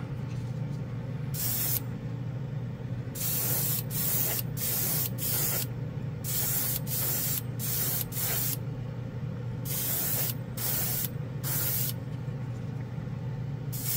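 Badger Patriot 105 gravity-feed airbrush spraying clear coat in a dozen or so short hissing bursts of air and atomised paint, each a fraction of a second long, with a steady low hum underneath.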